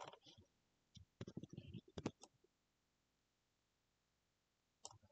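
Near silence: room tone with a few faint computer-mouse clicks, most of them about a second in and one near the end.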